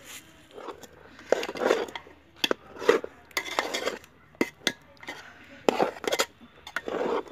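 A metal utensil scraping and clinking against a cooking pot or dish in a run of short, uneven strokes, with sharp knocks between them, as when food is stirred or scooped.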